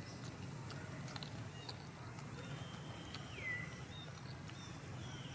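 Quiet outdoor background with a steady low rumble, a few faint clicks and a single short high chirp falling in pitch about three seconds in.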